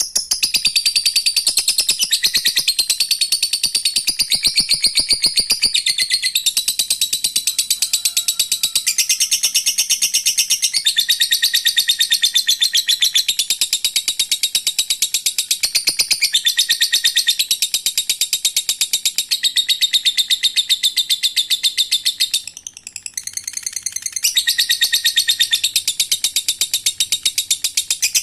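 Lovebird singing its long 'ngekek': a high-pitched chattering trill of very fast repeated notes, kept up almost without a break and faltering briefly near the end.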